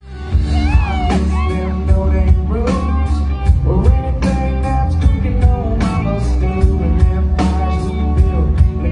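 A live band plays amplified electric guitar, bass and drums with a steady beat, and a male voice sings lead. Bent guitar notes slide up and down in the first couple of seconds.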